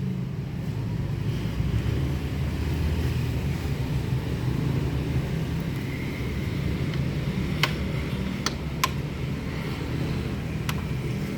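A vehicle engine running steadily, with a low rumble, and several sharp clicks in the second half.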